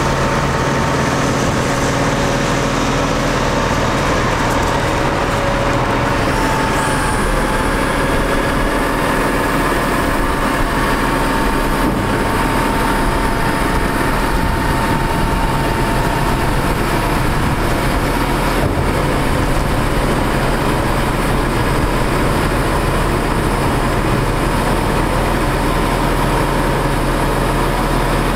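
The Cummins ISC diesel engine of a Freightliner FL80 truck runs at a steady idle, a constant drone with several steady tones over it. It is driving the truck's hydraulics while the raised dump body is lowered.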